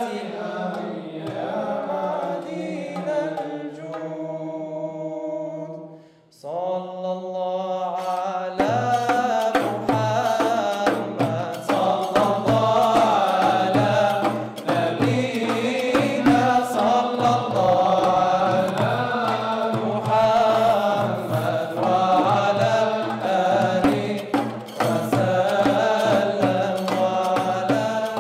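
Male vocal ensemble singing an Islamic devotional chant (nasheed). After a short break about six seconds in, a long held note leads into the group singing on with frame drums beating a steady rhythm.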